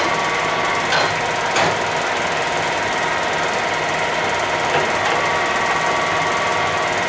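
Clausing Colchester 17x80 lathe running steadily in a high spindle speed, with a steady whine from its gearing. A couple of sharp clicks come about a second in.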